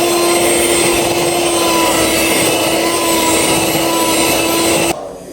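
Small electric kitchen appliance motor, a whisk or blender, running at a steady speed with an even whir, cutting off suddenly about five seconds in.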